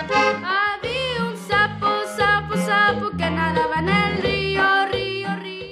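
Norteño-style accordion music with a bass line under it and a voice singing, sung lines gliding up and down.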